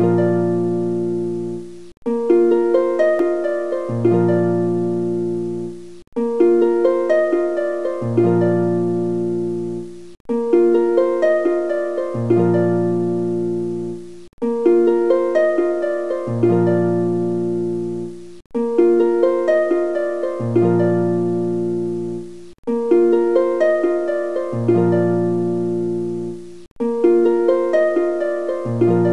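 Background music: a short phrase of plucked notes over a lower note, looping about every two seconds with a brief break between repeats.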